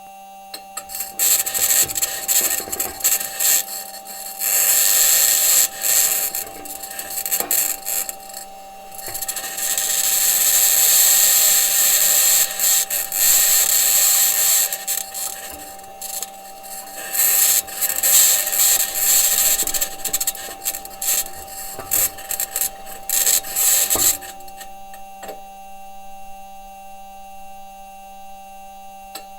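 Perseverance Mars rover driving, heard through its entry, descent and landing microphone: irregular stretches of loud, high-pitched scratching and grinding from the wheels and suspension on the surface, over a steady electrical hum. The scratching stops about five seconds before the end, leaving the hum. The scratching may be electromagnetic interference from one of the rover's electronics boxes, or the mobility system working against the Martian surface.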